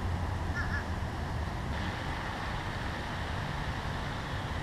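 Steady outdoor background: a low rumble and even hiss with no distinct event. A brief faint call sounds about half a second in.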